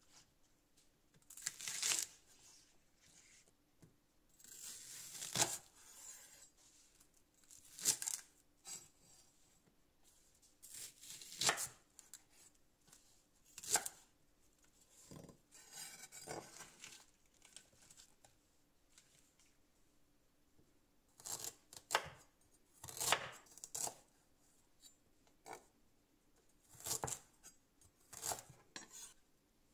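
Kitchen food-preparation noises: short rasping, tearing-like bursts of handling or cutting, irregular and one to three seconds apart.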